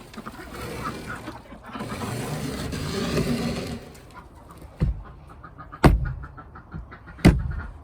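Domestic poultry calling softly over rustling and scraping, then three sharp knocks about a second apart, the last two the loudest.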